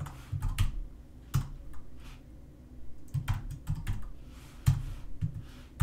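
Typing on a computer keyboard: an irregular run of keystrokes, with a short pause about halfway through.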